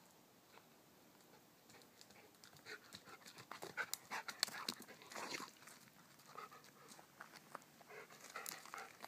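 A dog panting close up in quick breaths, starting a couple of seconds in, loudest in the middle and trailing off, with a few more near the end.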